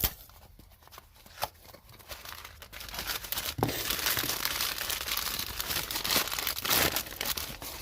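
Packaging handled by hand and torn open: a few scattered rustles and clicks, then from about three seconds in a dense run of crinkling and tearing that lasts several seconds.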